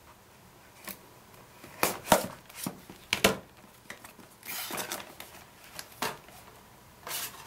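A knife cutting the seal on a cardboard box, a few sharp clicks and scrapes, followed about halfway through by cardboard rubbing and rustling as the box lid is slid and lifted open, with a couple of light taps near the end.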